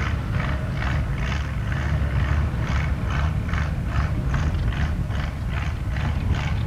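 Antique tractor engine running under full load while pulling a weight sled: a steady low rumble with an even, rhythmic clatter about three times a second.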